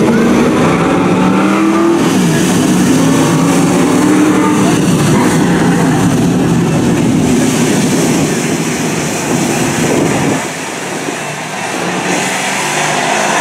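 Engines of a pack of dirt-track race trucks running at a slow pace speed as they roll past in formation, several engine notes rising and falling against one another. The sound drops off about ten seconds in as the pack moves away into the turn.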